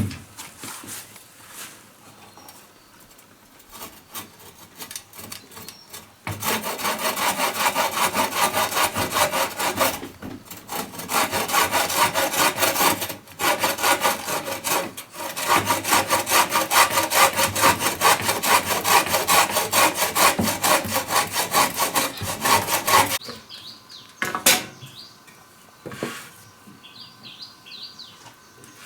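A hand saw cutting wood in quick back-and-forth strokes, starting about six seconds in, pausing briefly a few times, and stopping with about six seconds to go.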